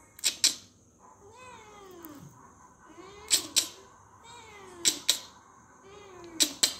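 Young orange-and-white cat meowing, four short calls that fall in pitch. Each meow is followed by a loud pair of sharp clicks.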